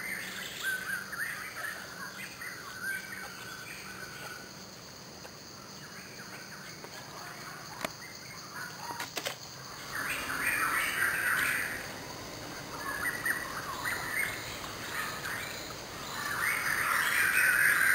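Birds chirping and calling in three bouts: at the start, in the middle and again near the end, over a steady background hiss. Two short clicks come in the quieter middle stretch.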